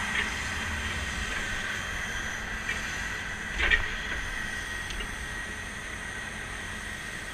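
Rear-mount grapple truck's hydraulic system running steadily, with a constant whine and hiss over a low engine rumble as the boom and grapple are worked from the joysticks. It is warmed up and running smoothly. A few brief squeaks or clicks cut through, the loudest about three and a half seconds in.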